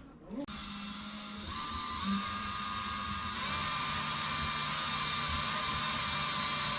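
Electric drill running steadily with a whine, starting about half a second in, likely boring a mounting hole for a fire detector.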